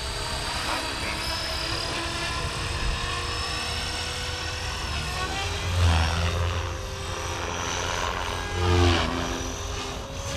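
Blade Fusion 360 electric RC helicopter in flight: a steady high motor and rotor whine, with a deeper rotor sound swelling louder three times, around six seconds in, around nine seconds in, and just after the end.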